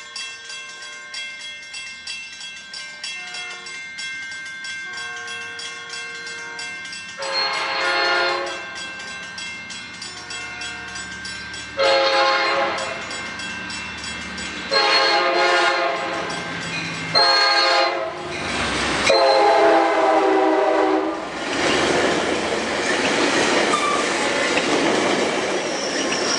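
A locomotive air horn sounds a chord as a train approaches. Faint notes come at first, then a run of loud blasts, mostly long with one short one, the last about two seconds long. The rushing rumble of the train passing close by follows.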